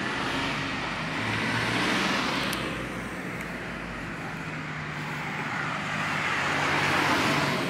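Road traffic: a vehicle passes, its tyre and engine noise swelling and fading with a falling pitch, then a second vehicle swells up near the end.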